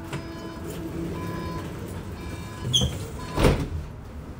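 Inside a Bombardier Flexity tram: steady humming and whining from the car's electrical equipment, a short high squeak near three seconds in, then a loud thump about half a second later.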